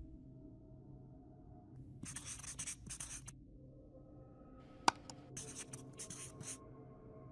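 Felt-tip marker writing on a smooth surface: two runs of quick, scratchy pen strokes, one about two seconds in and a longer one about five seconds in. A single sharp click comes about five seconds in.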